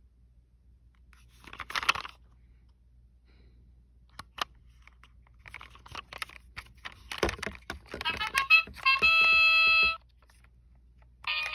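Plastic toy car being handled, with rustles and clicks. About eight seconds in, the toy's sound chip plays a short electronic sound effect that ends in a steady buzzy chord of about a second and then cuts off suddenly.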